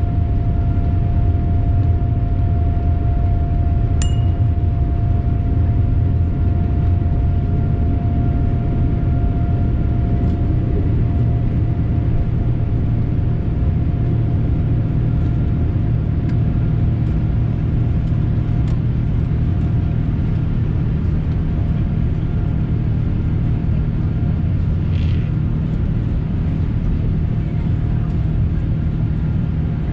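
Boeing 787-9 Dreamliner during takeoff: a loud, steady rumble with a steady tone running over it, easing slightly towards the end. A single sharp click about four seconds in.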